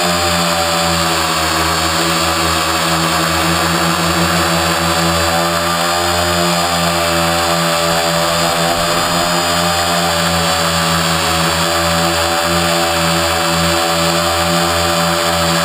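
Quadcopter's electric motors and propellers running steadily in a hover, a loud buzzing whine of many tones whose pitch wavers slightly, heard close up from a camera on the craft.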